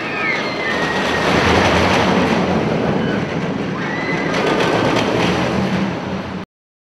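Loud roller coaster train running on its track, with a steady low rumble and a few brief high wheel squeals; it cuts off suddenly near the end.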